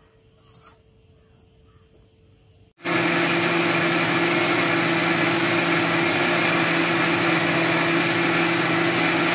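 Electric mixer grinder switching on about three seconds in and running at a steady speed, blending a thick milk, banana, sugar and tender-coconut shake in its steel jar.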